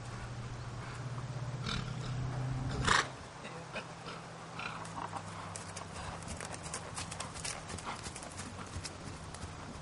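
Haflinger horse moving under a rider on grass, its hoofbeats heard as a run of short, irregular clicks and thuds, thickest in the second half. A steady low hum runs for about the first three seconds and ends in a short, loud burst.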